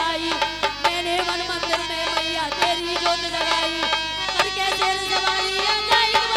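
Instrumental music for a Hindi devotional song: a sustained melody line over steady drum beats, with no singing.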